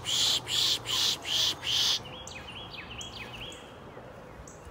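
Pishing: a person making five quick, hissing 'pish' sounds through the teeth, an imitation of a bird alarm call used to draw small birds out of cover. After them, small birds call with a run of short chip notes.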